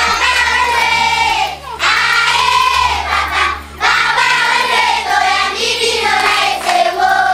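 A group of children singing together in sung phrases, broken by two short pauses about two and four seconds in.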